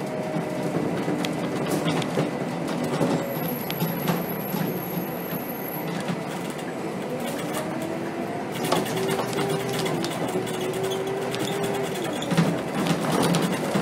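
Scania K270 city bus under way, heard from the driver's seat: the engine and driveline drone steadily with a whine that glides up and down in pitch as the bus speeds up and slows. Scattered rattling clicks come through the cab, thickest about nine and thirteen seconds in.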